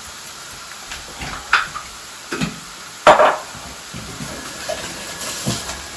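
Minced garlic sizzling in melted butter in a frying pan, with several short knocks of utensils against the pan, the loudest about three seconds in.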